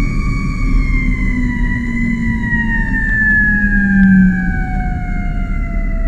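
Fire truck siren, its pitch falling slowly and steadily as it winds down, over the low rumble of the truck's engine.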